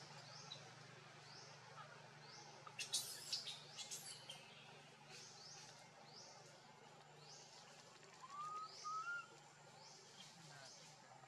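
Faint forest ambience: a short, high, rising chirp repeats about once a second. A few sharp clicks and rustles come about three seconds in, and two short rising whistles come near the end.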